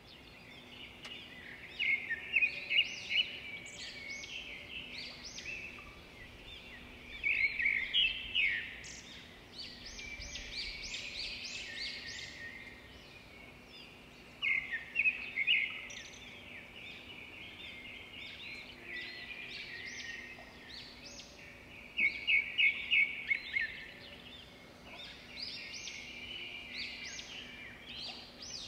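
Small birds chirping and twittering, with several louder runs of quick repeated high notes.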